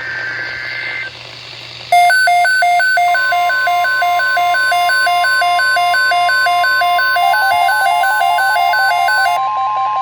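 Emergency Alert System signalling on a weather radio broadcast: a short burst of the two-tone SAME header data in the first second, then an electronic alert beeping rapidly in alternating low and high tones from about two seconds in, joined about a second later by the steady NOAA Weather Radio 1050 Hz warning tone.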